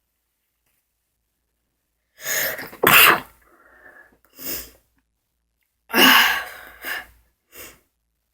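A small child sneezing twice, about three seconds apart: a short build-up breath, then a sharp loud sneeze, and a second sneeze that starts suddenly and trails off, each followed by a few short, softer sounds.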